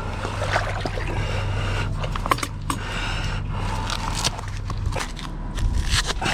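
Snorkeler's GoPro recording in the water: muffled water noise full of scattered clicks and crackles, over a steady low hum that stops about five seconds in.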